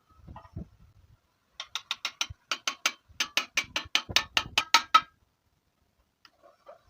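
Hand ratchet wrench being worked, clicking in quick runs of about six clicks a second, with two short pauses, then stopping.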